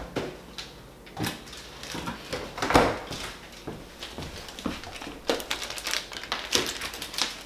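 Kitchen handling noises: a refrigerator door shuts with a thump a little under three seconds in, then short clicks and rustles of garlic packaging being handled.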